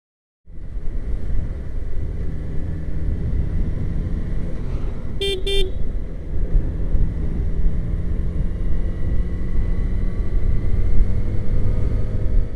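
Motorcycle engine running with wind noise as the bike rides along, its pitch slowly rising. About five seconds in, a horn gives two short toots.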